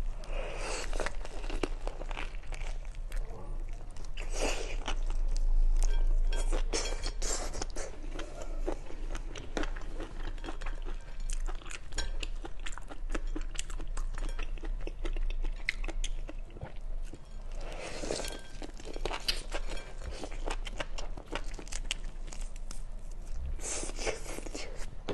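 Close-up eating sounds: a large prawn's shell being cracked and pulled apart by hand, with biting and chewing of the prawn meat and roe. Clicks and crackles throughout, with several louder spells of crackling.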